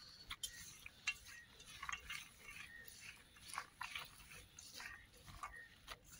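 A hand mixing peanuts into a wet gram-flour batter in a steel bowl: faint, irregular wet squelching and clicking of the coated nuts against each other and the bowl.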